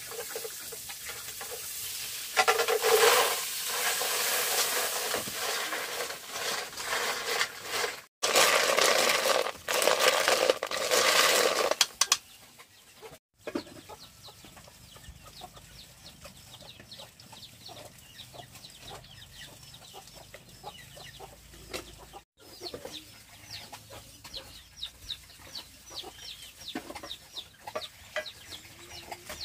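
Loud sizzling, as in frying in a hot pan, in two stretches separated by a cut. It is followed by chickens, with many short high calls and clucks.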